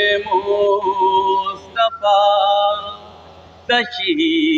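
A man singing an Urdu noha, a Muharram lament, in long held notes, with a short pause for breath a little after three seconds in.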